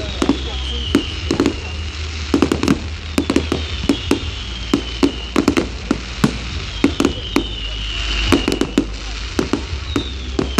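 Fireworks display: aerial shells bursting in a fast, uneven run of bangs and crackles. A high falling tone comes back every few seconds.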